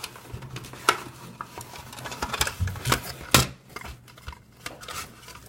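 A box being opened and its contents handled: rustling and rummaging with a few sharp clicks and knocks, the loudest about three and a half seconds in.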